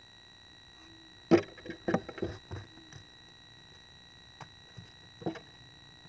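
Barn owl landing on and clambering into a wooden nest box: a cluster of sharp thumps and scrapes about a second in, then a few single knocks near the end. A steady high electronic whine from the nest-box camera runs underneath.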